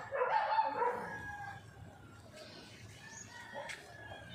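A loud animal call lasting about a second at the start, followed by fainter scattered background sounds.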